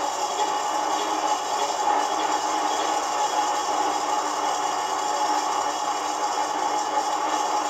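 Sound unit of a 1/16 scale RC tank playing a steady idling tank-engine sound with a rattle, through the model's small built-in speaker, so it has hardly any bass.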